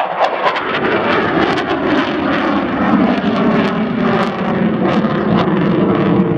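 Twin General Electric F404 turbofan engines of a CF-18 Hornet fighter jet, a loud steady jet roar as the aircraft climbs steeply.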